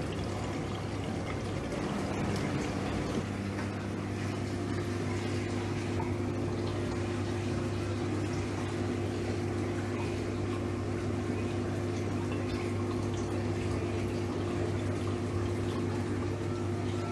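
Reef aquarium water circulating with a steady rushing, pouring sound, over a low steady pump hum.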